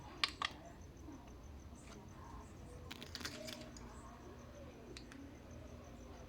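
Quiet clicks and taps over a low hum: two sharp clicks near the start, a quick run of clicks about three seconds in, and one more faint click near the end.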